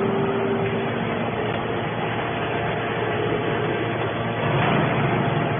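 Hydraulic scrap metal baler running, a steady mechanical hum with a faint steady whine that stops about a second in.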